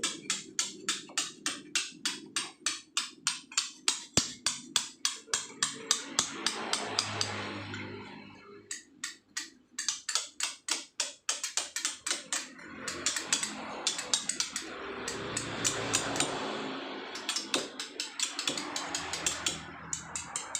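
Hand hammer driving a chisel into paras Jogja limestone: quick, even strikes about three or four a second, in runs broken by short pauses, as the stone is carved by hand.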